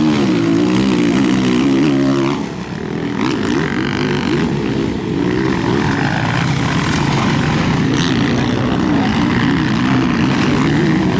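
Motocross bike engine revving hard under load, its pitch wavering up and down with the throttle and easing off for a moment about two and a half seconds in.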